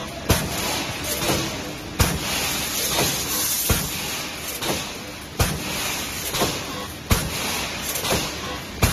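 Automatic BRC wire mesh welding machine cycling: a sharp clank every second and a half or so, six in all, as the welding head strokes and the mesh is indexed forward, over a steady machine noise.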